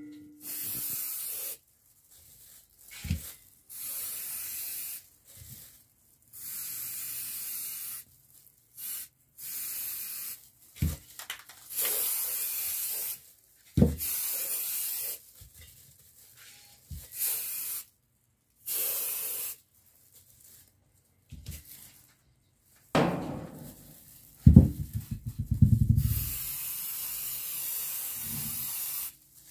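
Aerosol spray-paint can hissing in about nine separate bursts of one to three seconds each as paint is sprayed on. A spell of rapid knocks and rattling comes about two-thirds of the way through.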